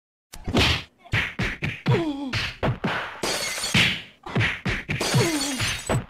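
A rapid string of short sound effects: sharp noisy hits, several with a pitched tone that falls in pitch, starting after a brief silence.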